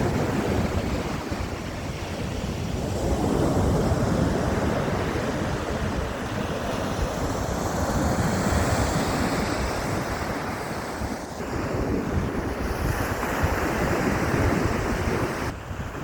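Sea surf washing in, swelling and easing every few seconds, with wind rumbling on the microphone.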